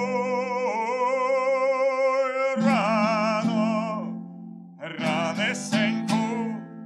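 A man singing a Ukrainian folk praise song (velychalna) in a long-held, wavering note over a plucked string instrument, then a shorter sung phrase with plucked notes. The music trails off near the end.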